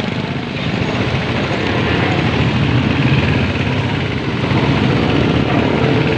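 City street traffic: a steady, rough low rumble of vehicle engines and road noise.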